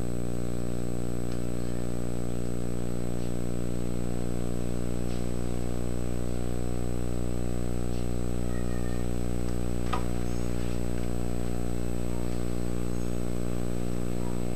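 Steady electrical hum with many evenly spaced overtones and a thin high whine running under the soundtrack, with one faint click about ten seconds in.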